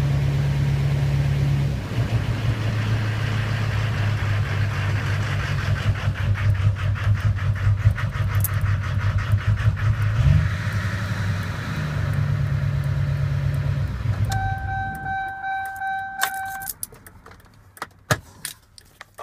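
Duramax diesel engine running with a steady clatter and a miss, which the owner takes for a bad injector. It shuts off about fifteen seconds in, and an electronic chime beeps for a couple of seconds, followed by a few clicks.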